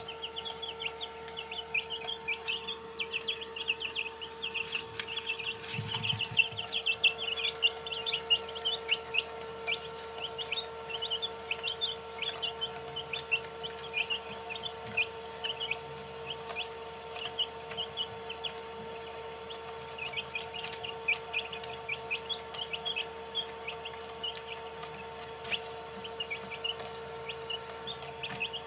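A group of White Heera aseel chicks peeping continuously, many short high cheeps overlapping, busiest in the first ten seconds or so, over a steady hum.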